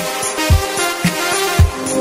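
Background electronic music with a steady kick drum about twice a second under held tones.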